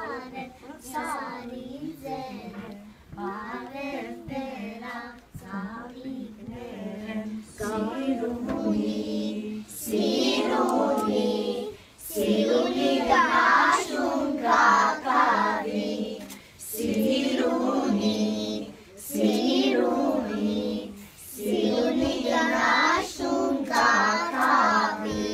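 A group of young children singing together in Armenian, without accompaniment, in short phrases with brief pauses between them; the singing gets louder about ten seconds in.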